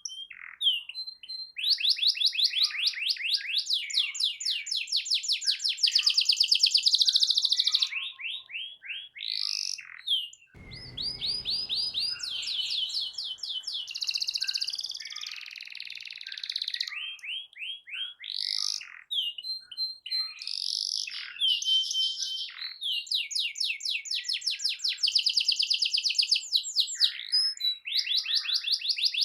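Domestic canary singing continuously: long rapid trills and rolls of fast repeated high notes, broken by short sweeping phrases and brief pauses.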